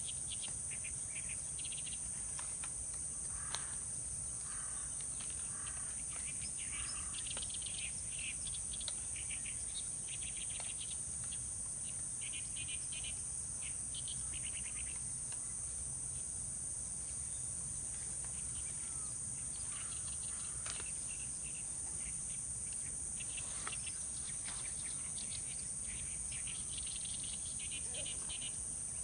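Steady high-pitched drone of insects in a summer lotus pond, with short chirping trills that come and go.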